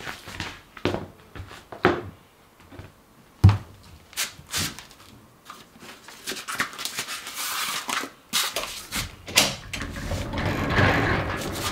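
Footsteps and a few sharp knocks on a hard entryway floor, then a frosted-glass sliding front door rumbling along its track as it is slid open near the end.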